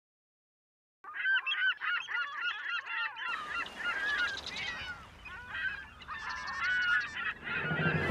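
A flock of birds calling, many short overlapping calls repeating over and over, starting about a second in. From about three seconds in, a steady low rumble and hiss of outdoor ambience runs under the calls.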